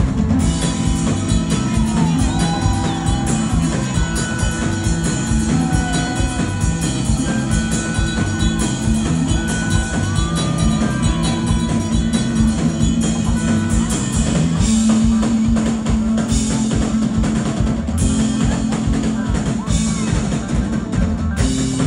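Rock band playing live, heard from the audience: a drum kit keeps a busy, steady beat under electric guitar and a moving low line of notes.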